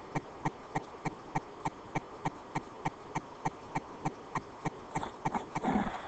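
Steady, evenly spaced ticking, about three short clicks a second, over a faint background hiss.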